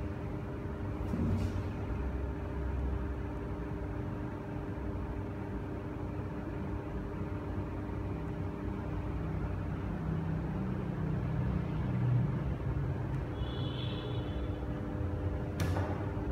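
Steady droning hum with a low rumble beneath it, the rumble swelling a little about ten to twelve seconds in; a brief high chirp near the end and a sharp click just before the end.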